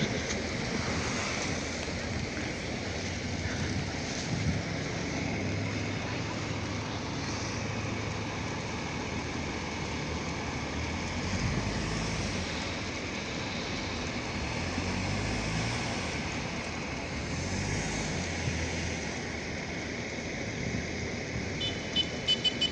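Steady wind and traffic noise on a city street, with a vehicle engine humming through the middle. A run of short, high-pitched beeps comes in right at the end.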